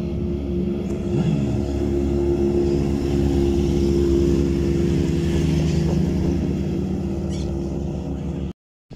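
Several motorcycle engines running as a line of bikes rides slowly past, growing louder midway as two sport bikes pass close by. The sound cuts out briefly just before the end.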